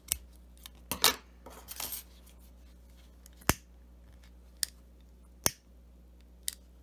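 Scissors cutting polyester crochet cord: a few snips in the first two seconds, then single sharp clicks about a second apart.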